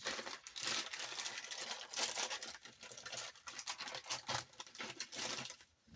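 Plastic parts packaging crinkling and rustling in the hands, a dense run of rapid crackles.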